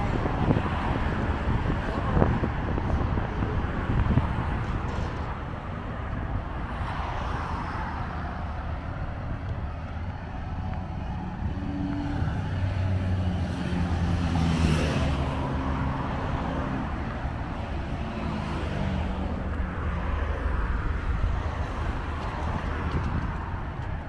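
Road traffic on a multi-lane boulevard: cars driving past with a steady low rumble that swells and fades. About halfway through, one vehicle's engine note steps through several pitches.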